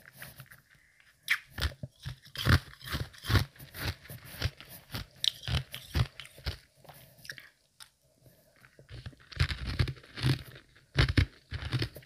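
Semi-melted ice being bitten and chewed, close up: a run of soft-to-medium crunches starting a little over a second in, a pause of about a second and a half past the middle, then another quick run of crunches.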